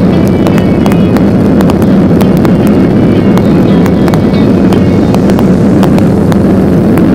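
Boeing 737-800's CFM56-7B engines at takeoff thrust, heard inside the cabin during the initial climb as the landing gear retracts: a loud steady roar, with many short clicks and rattles over it.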